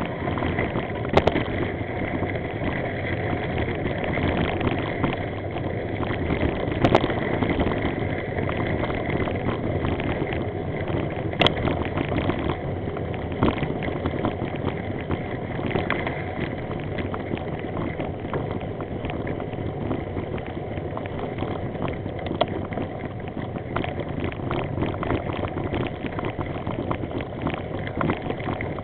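Bicycle rolling over a rough dirt and gravel track, picked up by a camera mounted on the bike: a steady rumble of tyres with constant small rattles. A few sharper knocks stand out about 1, 7 and 11 seconds in.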